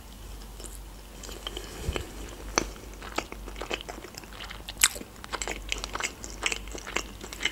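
A person chewing a mouthful of sushi roll: irregular soft mouth clicks and crunches, several a second, beginning about a second in.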